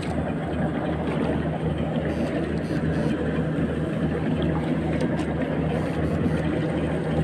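Small engine running steadily at a constant speed, a low hum with a throb that pulses a couple of times a second.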